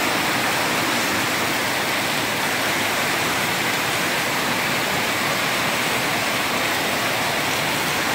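Rain falling steadily, an even hiss of rain with no change in strength.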